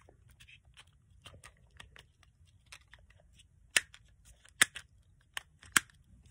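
Small plastic clicks and rattles of hand-held puzzle cubes being handled and turned, with four sharper clicks in the second half.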